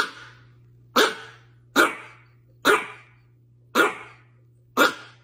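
Chihuahua barking: six short, sharp barks spaced about a second apart.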